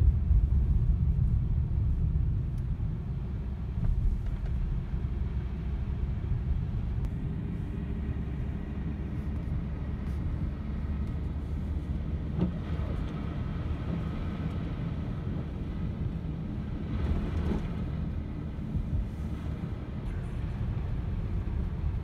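A car driving, heard from inside the cabin: a steady low rumble of engine and tyres on a wet, snowy highway.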